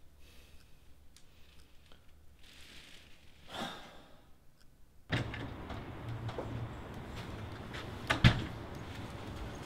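A man's breathy sigh in a quiet room with faint regular ticking, then a steady low hum and, near the end, a door handle and latch clicking sharply as a door is opened.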